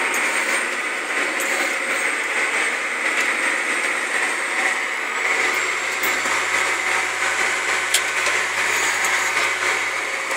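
Tractor engine running steadily under load while pulling a disc, heard from inside the cab, with a sharp click about eight seconds in.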